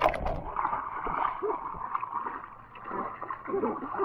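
Swimming pool water splashing and sloshing as people wrestle in it, with a sharp splash right at the start.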